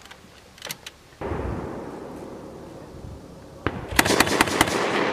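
Live fire from a Mk 19 40 mm grenade machine gun: a dull boom about a second in that rolls away over a couple of seconds, then near the end a rapid string of five or six sharp bangs with a long rumbling echo, the gun's 40 mm grenades going off.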